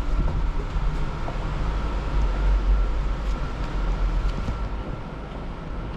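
Steady low rumble of vehicle noise with a faint constant high whine.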